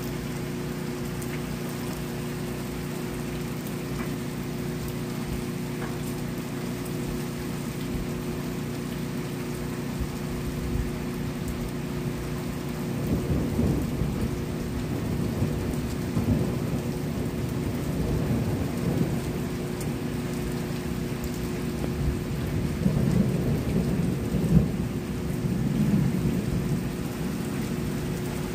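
Steady rain with a long rolling rumble of thunder that swells in about halfway through and peaks in several surges near the end.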